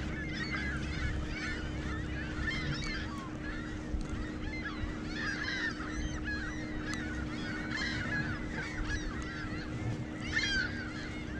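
A large flock of birds calling continuously, many short overlapping calls at once, over a faint steady hum.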